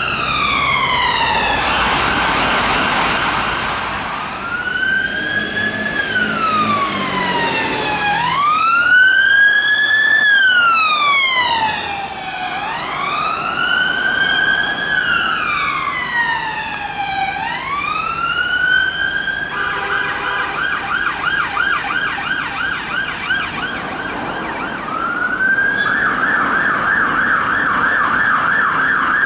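Sirens of UK emergency vehicles (an ambulance, a police car and a fire engine) responding in turn. A slow rising-and-falling wail runs for the first two-thirds, switches to a fast yelp about two-thirds through, and a louder fast yelp takes over near the end.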